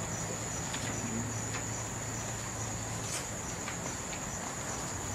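Crickets trilling steadily, a thin high-pitched drone, over a low hum, with a few faint clicks.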